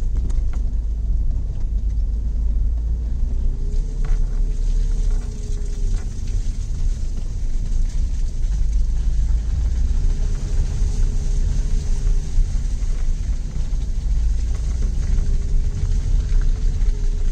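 Tata Tiago hatchback driving slowly over a rutted, muddy dirt track, heard from inside the cabin: a steady low rumble of engine, tyres and suspension. A few light knocks come about four and six seconds in.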